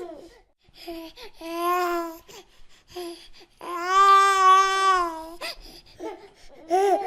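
A high-pitched voice holding two long wailing notes, the second longer at nearly two seconds, with short vocal sounds in between.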